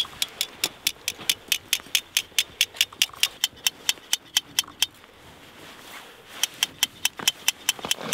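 A rapid, even run of sharp clicks, about five a second, that stops for about a second and a half past the middle and then starts again.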